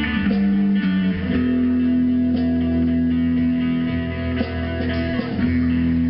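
Live rock band playing: electric guitars and bass holding long sustained notes, with a few sharp struck hits over them.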